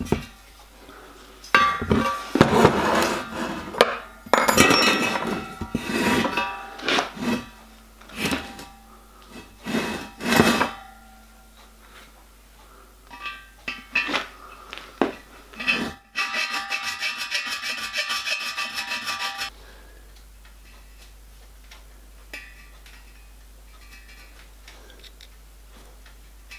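Flat hand file rasping back and forth over a silver-soldered copper boiler plate, dressing the joint around a freshly tapped hole, in a run of separate strokes. Past the middle comes a few seconds of quicker, steady scraping with a metallic ring.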